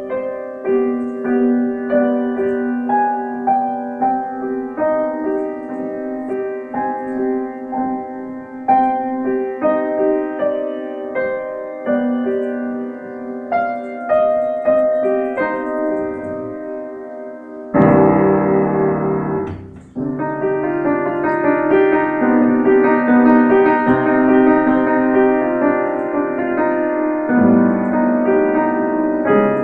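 Solo piano playing a slow melodic piece of struck, decaying notes. About eighteen seconds in, a sudden loud low chord is rapidly repeated for about two seconds, then breaks off before the melody resumes.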